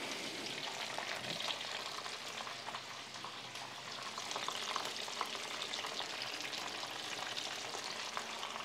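Breaded chicken nuggets frying in hot oil in a frying pan: a steady sizzle with fine crackling.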